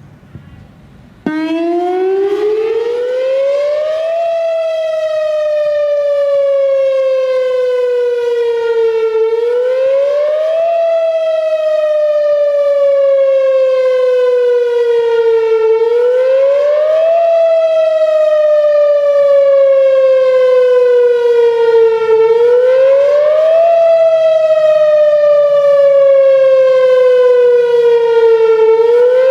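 Whelen Vortex R4 "Finback" outdoor warning siren starting up suddenly about a second in and sounding a wail test: the pitch climbs, slides slowly down, then climbs again, repeating about every six and a half seconds. Its rotator is broken, so the siren holds a steady loudness instead of swelling and fading as it turns.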